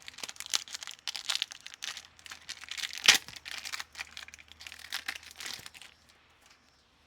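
Plastic wrapper of a trading card pack being torn open and crinkled in the hands, a dense run of crackling and rustling for about six seconds with the loudest rip about three seconds in.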